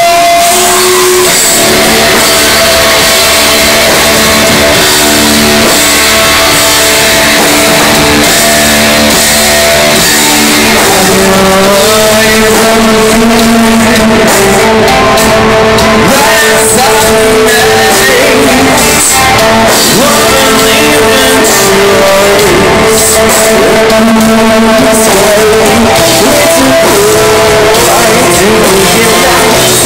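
Rock band playing live: electric guitars, bass guitar and drums, very loud throughout.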